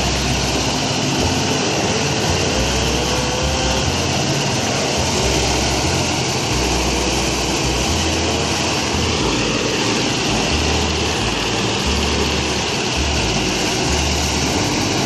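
Engine-driven rice threshing machine running steadily under load, a continuous loud mechanical noise that holds level throughout.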